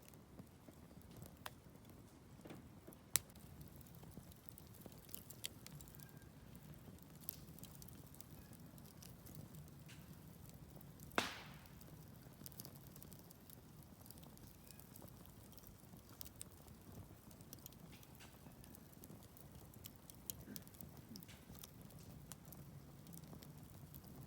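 Wood campfire crackling: scattered small pops and ticks, with a sharp crack about three seconds in and a louder pop a little before the middle.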